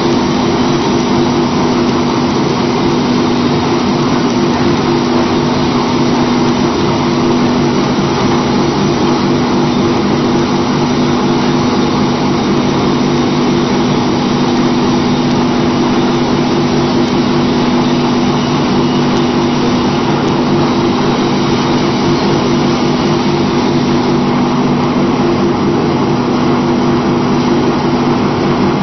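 Paper briquetting machine running under load, a loud steady mechanical hum with a strong, unchanging low drone as it presses material into briquettes.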